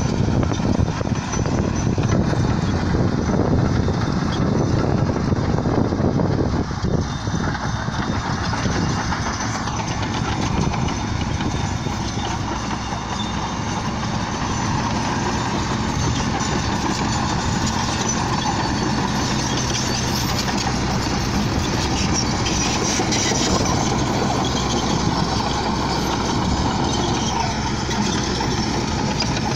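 Crawler bulldozer working: its diesel engine running steadily under load, with the clatter of its steel tracks as it moves over the earth. Somewhat louder for the first few seconds.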